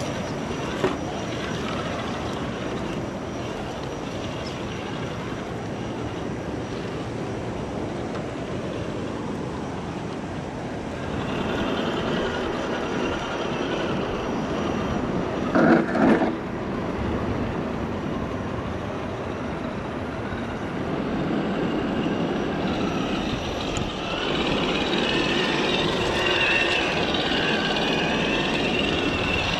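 A 1/10-scale RC crawler's electric motor and gears whine as it crawls over rock, with two loud knocks about halfway through.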